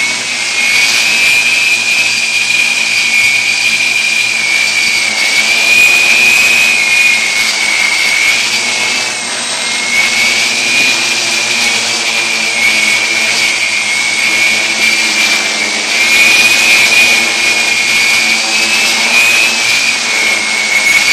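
Multicopter's electric motors and propellers whining steadily, heard close up from a phone mounted on the craft; the high whine shifts slightly up and down in pitch as it flies.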